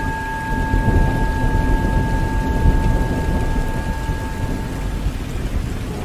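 Rumbling, rain-like noise like a thunderstorm. Over it a steady ringing tone with a higher overtone fades out about five seconds in.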